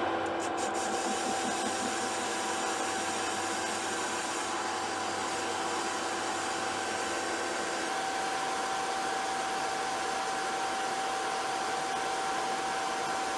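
Metal lathe running through a facing cut on a mild-steel workpiece: a steady machine hum with a high whine over an even hiss. One lower tone in the whine drops out about two-thirds of the way through.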